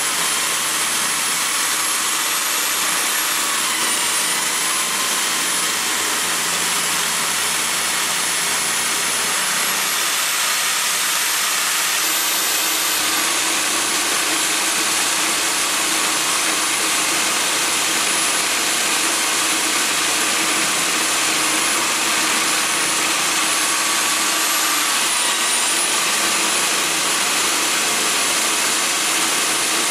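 Electric drill motor driving an ER20 collet milling fixture, with an end mill cutting a slot in aluminium bar. It gives a loud, steady whine whose pitch dips slightly a few times.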